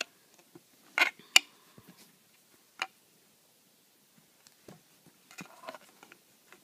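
Crocheting handling sounds: a few sharp clicks of the crochet hook against the broomstick needle as loops are pulled up and slipped on, the loudest two about a second in and another near three seconds, with soft yarn rustling near the end.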